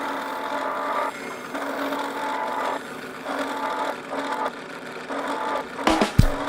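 A power tool running in on-and-off stretches of about a second each. Near the end, a drum beat of music comes in.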